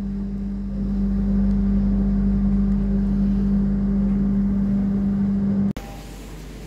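Steady low hum of the stopped passenger train's machinery over a low rumble. It cuts off abruptly near the end, leaving a quieter hiss.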